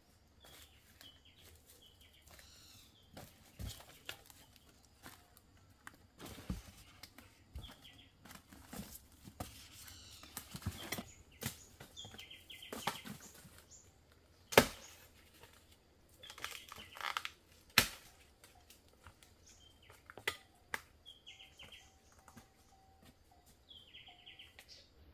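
Small birds chirping now and then, over handling noises: rustling and tearing, with two sharp knocks a few seconds apart past the middle.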